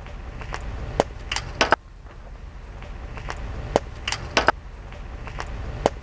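Irregular sharp knocks and clicks, about a dozen in small clusters, as a steel crimp fitting is pushed and worked onto the end of a two-wire rubber hydraulic hose.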